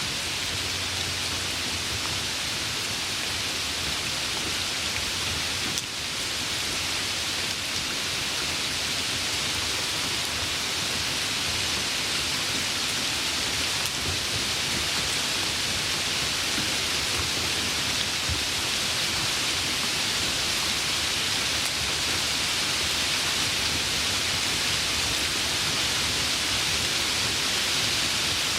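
Steady rain falling in an even, dense hiss that grows slightly louder over the stretch.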